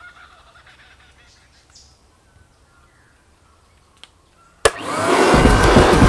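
A vacuum cleaner switched on with a click near the end, its motor spinning up with a rising whine and then running loudly and steadily. Before it, faint bird calls over a quiet background.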